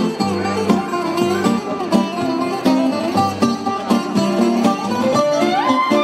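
Live Greek folk band with two bouzoukis and a guitar playing a fast, bright, plucked instrumental dance tune. Near the end a rising slide leads into the next phrase.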